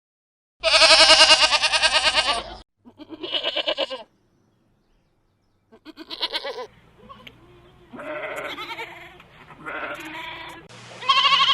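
Goat bleating: about six separate quavering bleats. The first is the longest and loudest, at about two seconds; the later ones are shorter.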